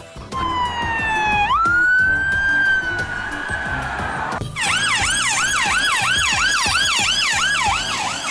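Police car sirens. First a slow wail that dips, jumps up and holds, then, after a short break about halfway, a fast siren sweeping up and falling back about three times a second.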